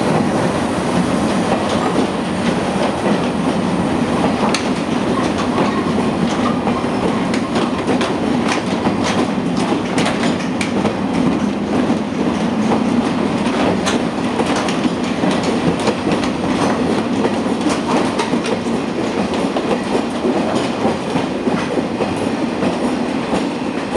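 Container wagons of a departing freight train rolling past close by and gathering speed, their wheels clacking over rail joints with many sharp clicks over a steady rumble.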